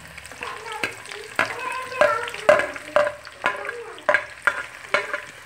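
Sliced onions sizzling as they start to fry in hot oil in a karahi, while a utensil stirs them, knocking and scraping against the pan about twice a second.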